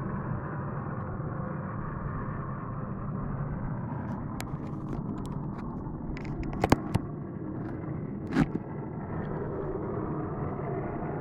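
Steady low droning hum of layered tones, the unexplained 'strange sound' said to be very loud and to come from every side; the uploader rules out an aircraft. A few sharp clicks and a short knock sound a little past halfway.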